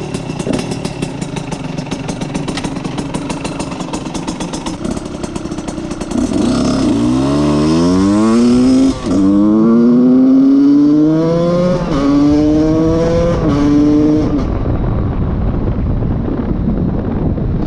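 Husqvarna SM 125 two-stroke single-cylinder engine, breathing through a handmade exhaust end can. It idles with a crackly, uneven beat for about six seconds, then the bike pulls away, revving up through the gears with three quick dips at the shifts. Near the end the rider shuts off and the engine drops back.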